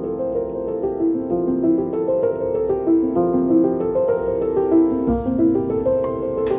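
Background instrumental music led by piano, a run of notes played one after another.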